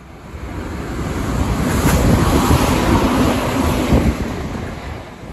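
Meitetsu electric train passing at speed: a rushing rumble that builds, holds through the middle and fades, with wind buffeting the microphone.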